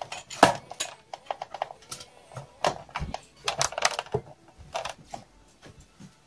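Irregular clicks and knocks of small objects being handled and set down, with the loudest knock about half a second in. The clatter thins out near the end.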